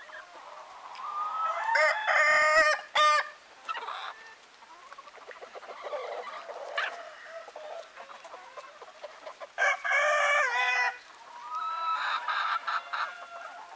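Ayam Ketawa (laughing chicken) roosters crowing: two loud, long, wavering crows, one about two seconds in and one about ten seconds in, with a fainter crow just after the second, and hens clucking between them.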